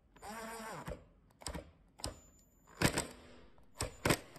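Cordless impact driver running a screw into a cabinet hinge: a short spell of motor whine, its pitch dropping as it ends, then several short staccato clattering impact bursts as the screw seats, the sign that the screw is tightened properly.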